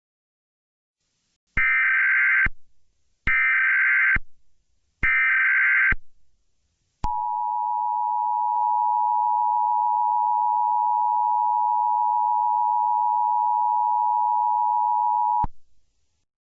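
Emergency Alert System tones: three short, identical SAME header data bursts, each a buzzy digital warble, about a second and a half apart. They are followed by the EAS two-tone attention signal, a steady dual-pitched tone held for about eight seconds that then cuts off suddenly. This is the signal that announces a new alert message.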